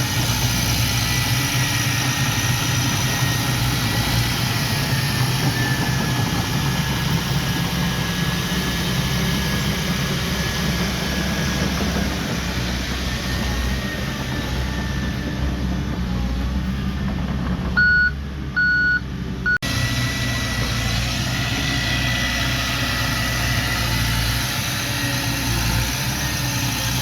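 Heavy diesel earthmoving machinery running steadily, with a thin high tone over the engine. About eighteen seconds in, a reversing alarm beeps three times before the sound cuts abruptly back to the engine.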